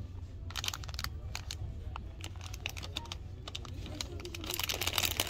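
Crinkly plastic candy bags handled on a peg rack, rustling and clicking in irregular bursts that are densest near the end, over a steady low hum.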